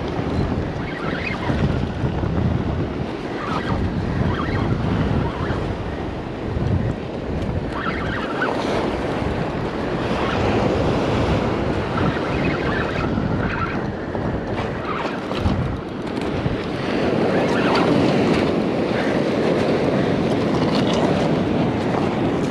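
Ocean surf breaking on a cobble beach, with wind buffeting the microphone.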